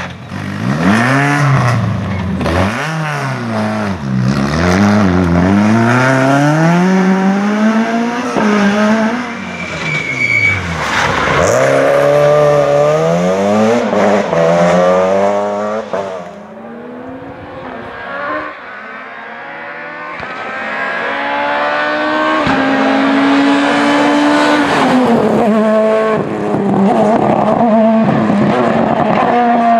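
Rally cars at full effort, one after another: the engines rev hard and climb in pitch, drop back at each gear change and climb again, as each car accelerates past, with a quieter stretch between passes about two-thirds of the way through.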